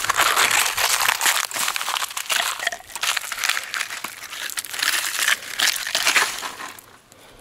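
Broken ice and the cut-off plastic bottle it froze in being crunched and pulled apart by hand to free a frozen flashlight: irregular crackling and crinkling that dies away near the end.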